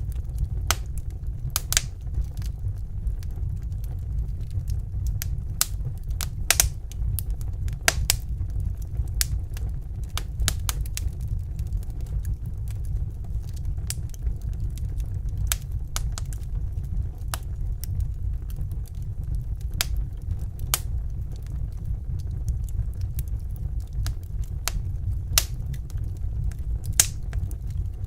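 Wood fire in a fireplace crackling: irregular sharp pops and snaps, a few louder than the rest, over a steady low rumble of the burning fire.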